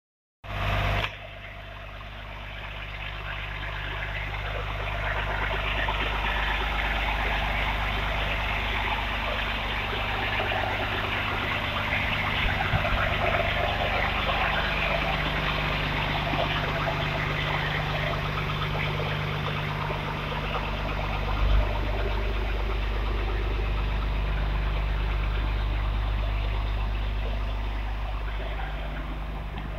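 Mack heavy truck's diesel engine idling steadily, growing louder over the first few seconds, with one short knock about two-thirds of the way through.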